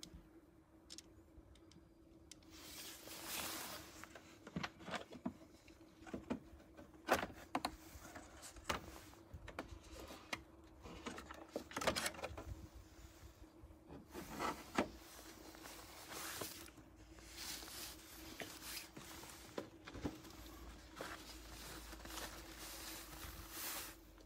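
Hands opening a Volvo C30's plastic air-filter box and pulling out the pleated paper filter: scattered clicks, knocks and scraping of plastic and paper, over a faint steady hum.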